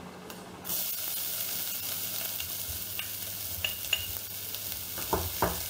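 Chopped onion sizzling in hot olive oil in a stainless steel pot, the steady sizzle starting under a second in as the onion goes in. A few light knocks of the spoon against the pot as it is stirred, two duller ones near the end.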